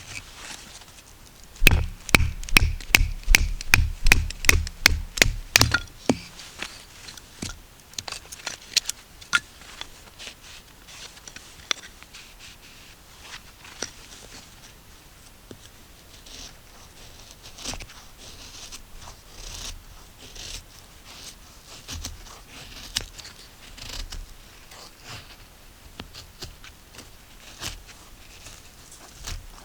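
A quick, even run of about a dozen sharp knocks, about three a second, starting a couple of seconds in and stopping after about four seconds. Scattered lighter clicks and crunches follow.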